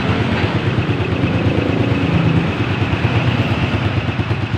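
Racal 150 motorcycle engine running at a steady idle.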